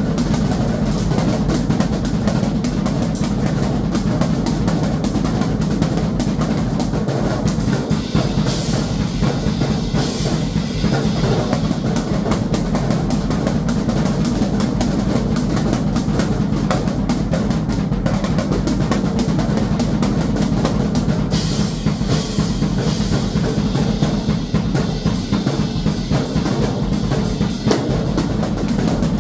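Drum kit played in a fast, unbroken stream of strokes, heaviest on the low drums. Brighter, hissier stretches join about a third of the way in and again past two-thirds.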